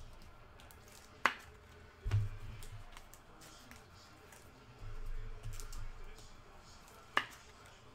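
Two sharp clicks about six seconds apart, with soft low thumps in between.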